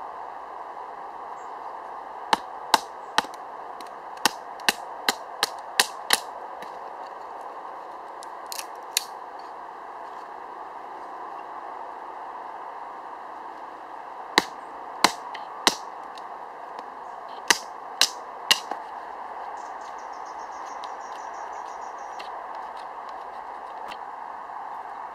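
Sharp wooden cracks in short quick runs as a bushcraft knife is knocked through a small stick, splitting it into kindling: a run of about nine, then a pair, then three, then four.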